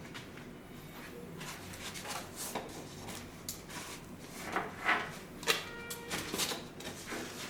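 Handling noise: a run of scrapes, rustles and knocks, loudest about five seconds in, with a brief pitched tone near six seconds.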